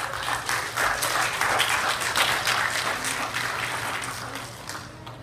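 Congregation applauding, building about a second in and tapering off near the end.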